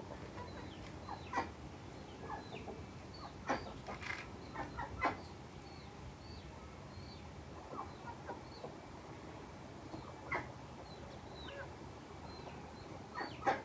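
Backyard chickens clucking now and then as they feed, in short, sharp calls, with faint high chirps repeating throughout.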